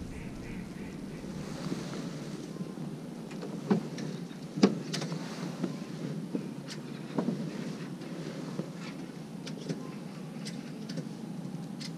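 Steady wind noise on the microphone, with scattered small clicks and knocks throughout, the loudest a little under five seconds in.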